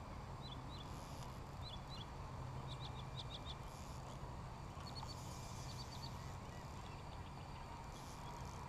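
Faint bird chirps: short high notes in pairs, then quick runs of four to six, over a steady low background rumble.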